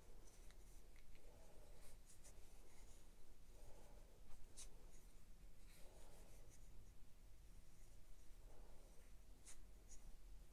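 Faint rustle of super bulky yarn rubbing over a crochet hook as single crochet stitches are worked, a soft scrape every couple of seconds, with a few light ticks.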